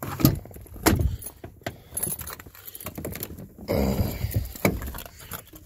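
Keys jangling and clicking as a pickup truck's door is unlocked and pulled open, with a drawn-out pitched creak about four seconds in.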